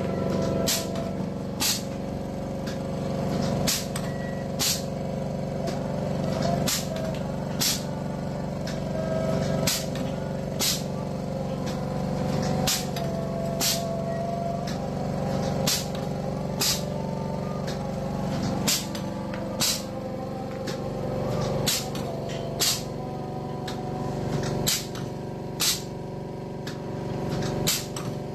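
Wire straightening and cutting machine running with a steady motor hum, its mechanism clacking sharply in pairs about a second apart, one pair roughly every three seconds.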